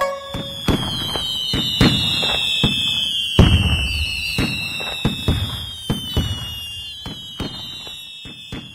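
Fireworks going off: a run of sharp bangs and crackles, with several long high whistles sliding slowly down in pitch. The biggest bang comes about three and a half seconds in, and the display fades toward the end.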